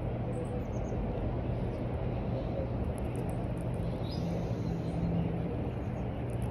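Steady outdoor background noise with an even low hum throughout.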